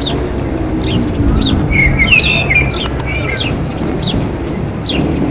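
Small birds chirping, short downward-sliding calls repeated about every half second with a brief flurry of chirps about two seconds in, over a steady low rumble.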